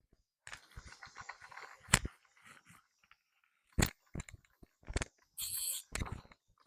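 Rocks and gravel being handled and tossed, crunching and clattering with several sharp knocks, the loudest about two seconds in.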